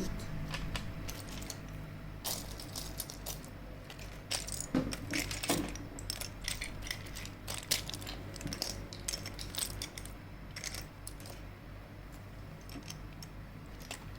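Lego bricks and small plastic toy pieces being handled, clicking and clattering irregularly, busiest in the first half.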